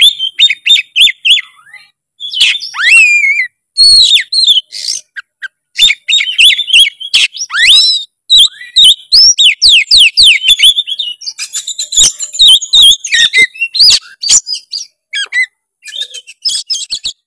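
Oriental magpie-robin (kacer) singing loudly and nonstop in rapid, varied phrases of sharp falling whistles, trills and clicks, full of imitated notes ('full isian'), the sign of a bird in peak song ('gacor'). The song stops abruptly near the end.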